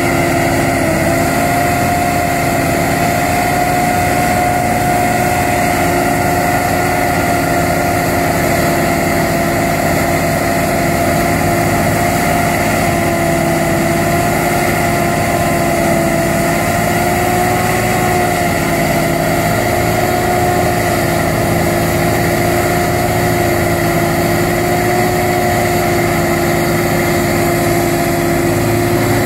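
Diesel engines of a John Deere track tractor and a Kirovets articulated tractor running steadily under load while the stuck tractor is towed out of deep mud, with a steady whine that wavers slightly in pitch a few times.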